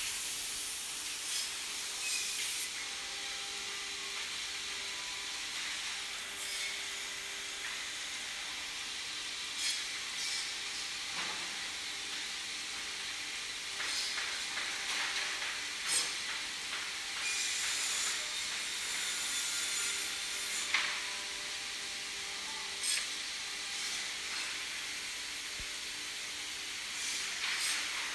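MZ54121 21-spindle hydraulic boring machine running with a steady hiss and a faint hum. Short sharp knocks come now and then, and there is a denser noisy stretch a little past the middle.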